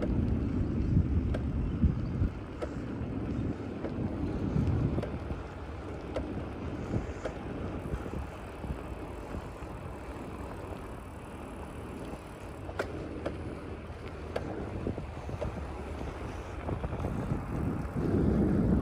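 Wind buffeting the phone's microphone: a low, uneven rumble, stronger in the first few seconds and easing off in the middle, with a few faint clicks.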